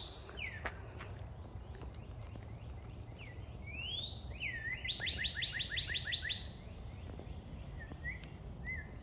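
A songbird singing clear whistled notes: rising and falling slurs, then a fast run of about ten downslurred notes near the middle, followed by a few softer short slurs.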